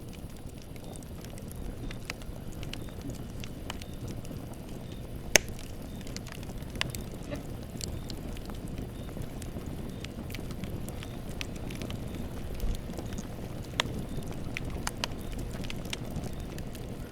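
Campfire burning: a steady low rumble with scattered sharp pops and crackles, the loudest snap about five seconds in.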